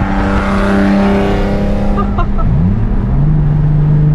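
Nissan 350Z HR's VQ35HR V6 through a full titanium Tomei exhaust, heard from inside the cabin. It runs loud under steady throttle for about two seconds, drops off, then climbs again and settles into a lower steady note.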